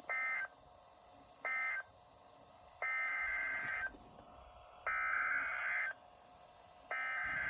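Emergency Alert System SAME header: bursts of buzzy two-tone digital data about a second apart, two short bursts and then three longer ones of about a second each, the last running on past the end. This is the coded header that opens an EAS alert and carries its event code, here a winter storm warning.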